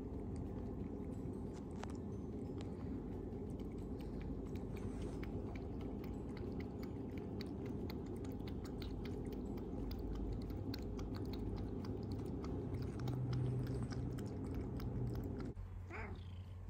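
A cat close to the microphone: a steady low rumble overlaid with fine crackling clicks, like purring or chewing. It stops near the end, where the cat gives a short meow.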